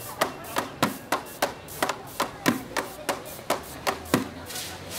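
Improvised street percussion: sticks beating a quick, uneven rhythm on hand-held pots or buckets, with sharp knocks about four to five a second.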